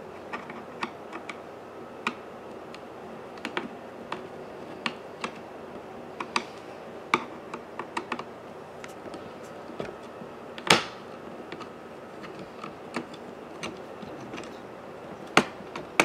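Screwdriver working the captive screws on a Dell Latitude E7470's bottom cover: irregular sharp clicks, with a clicking screw the sign that it is fully unscrewed. One louder knock about two-thirds of the way through.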